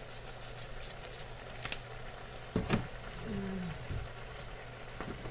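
Mrs. Dash seasoning shaker shaken over a skillet, a quick rattling of about six shakes a second that stops a little under two seconds in. A short hum of a voice follows, over a steady low hum.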